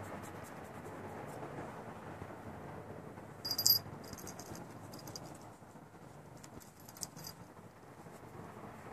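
Small bell on a cat's collar jingling in brief bursts as the cat moves, the loudest about three and a half seconds in and another near seven seconds, over a steady low rumble.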